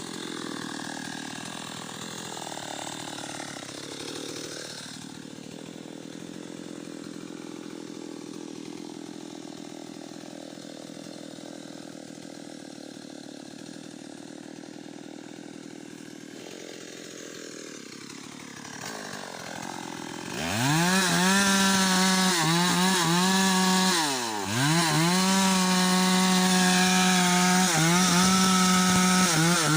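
Stihl chainsaw running quieter for about two-thirds of the time, its engine speed dipping twice. It then opens to full throttle, loud and steady, as it cuts into a teak trunk, with one brief sharp drop in engine speed a few seconds later.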